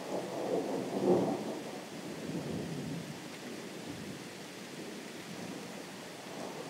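Distant thunder rumbling over the steady hiss of rain. It swells about a second in, then settles into a lower, even rumble.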